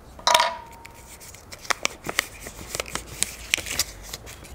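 Folded paper raffle slip drawn from a tub of lots and unfolded: a string of short, crisp paper crackles and rustles, loudest just after the start.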